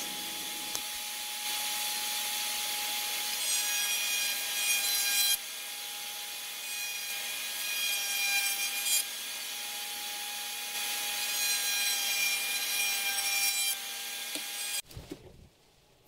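Router table running, its spinning bit cutting along the edges of thin wooden strips fed past by hand to mimic tongue and groove. A steady whine with a cutting hiss that grows louder and softer as each strip passes, stopping about a second before the end.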